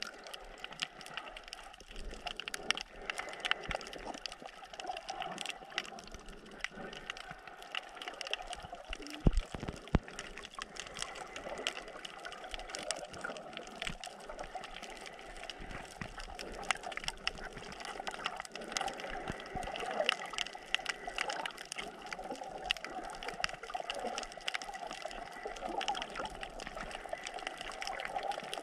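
Underwater sound picked up by a submerged camera on a coral reef: a steady watery hiss laced with dense fine crackling, with two sharp low thumps about nine and ten seconds in.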